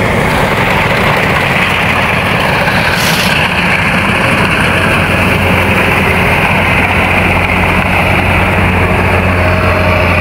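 Rice combine harvester running as it cuts, a steady low engine hum under a dense mechanical clatter. The hum grows stronger about halfway through, and there is a brief hiss about three seconds in.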